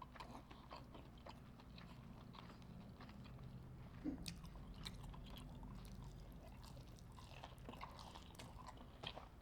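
Faint, close-miked chewing and biting of hot honey fried seafood, with scattered small wet clicks and a few brief crunches.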